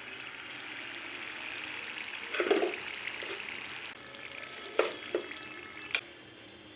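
Deep-frying oil sizzling in a pan as fried gujiyas are lifted out with a metal slotted skimmer. The sizzle eases off in the second half, with a few knocks and sharp clicks of the metal skimmer against the pan.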